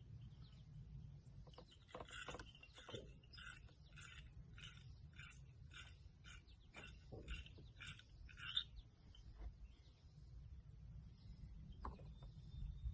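Faint bird song: a series of about a dozen short, evenly spaced repeated notes, about two a second, lasting several seconds, over a low wind-like rumble.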